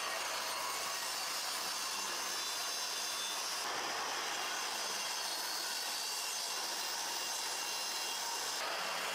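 DeWalt mitre saw's spinning blade cutting into a plywood template with a steady sawing noise.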